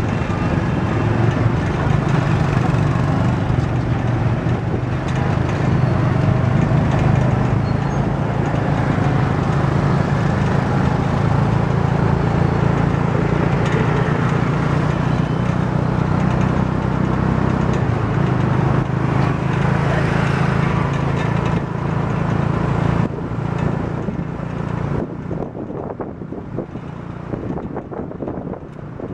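Motorcycle engine of a moving tuk-tuk (auto-rickshaw) running steadily under way, with road and traffic noise. Near the end the engine note drops away and quieter road and wind noise is left as the vehicle eases off.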